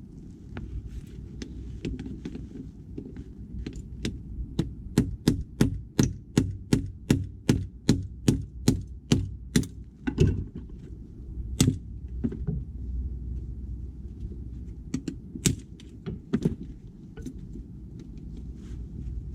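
A rapid run of sharp hammer blows, about three a second, for several seconds. After it come a few single, heavier blows spaced out.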